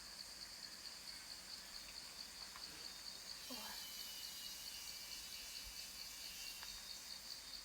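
Cicadas calling in a steady, high-pitched drone with a fast, even pulse.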